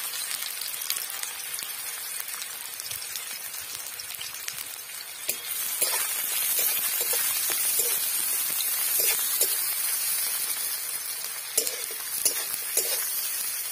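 Sliced onions sizzling in hot oil in a metal karahi while a metal spatula stirs them, scraping the pan. The sizzle grows louder about five seconds in, and the spatula clinks sharply against the metal a few times in the second half.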